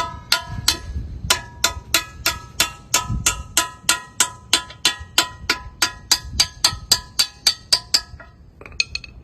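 Hammer striking the steel bucket pin of an excavator again and again, about three blows a second, each hit ringing like a bell, to drive the pin out of the bucket linkage. The blows stop about eight seconds in, followed by a few faint metal clinks.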